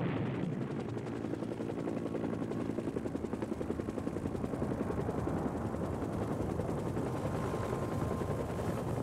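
Helicopter rotor and engine running steadily, with a fast, even chop throughout; a faint high whine joins near the end.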